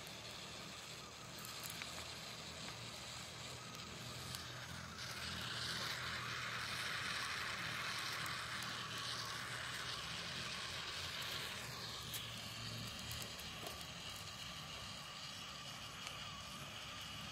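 Snails roasting on glowing wood embers, hissing softly with faint crackles; the hiss swells for several seconds in the middle.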